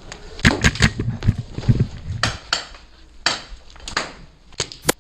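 Magfed paintball markers firing: a dozen or so sharp pops at uneven intervals, some in quick pairs and short strings.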